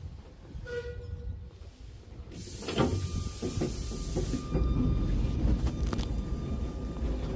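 Sóller electric tram running along its track, heard from an open wooden car: a steady low rumble and clatter of the wheels on the rails that grows louder about two and a half seconds in. There is a short high tone about a second in, a burst of hiss with a knock near three seconds, and then a thin steady high tone held for several seconds.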